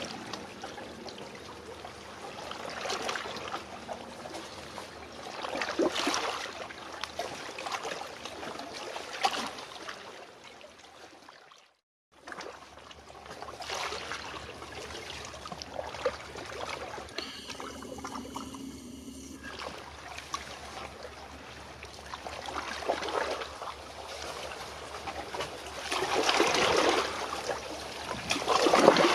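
Small waves lapping and splashing against concrete breakwater blocks, swelling up every few seconds, loudest near the end. The sound cuts out briefly near the middle.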